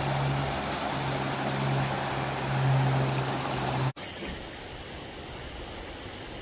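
Water rushing over a small rocky creek cascade, with a low steady hum underneath. About four seconds in it cuts off sharply to a quieter, even hiss of gently flowing water.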